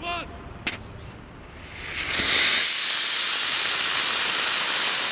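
Small rocket motor firing on a static test stand: a sharp click just under a second in, then about two seconds in the motor ignites and its exhaust rises into a loud, steady hiss that holds to the end.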